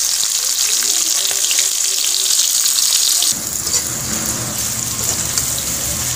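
Sliced onions sizzling in hot oil in a kadhai, a dense frying hiss. About three seconds in, the sizzle drops and a low steady hum comes in while a metal spatula stirs the onions.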